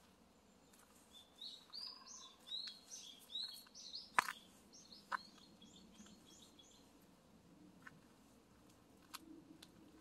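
Wild songbird singing a quick run of short, high chirping notes that lasts about five seconds, then stops. A few sharp clicks come through as well, the loudest one just past the middle.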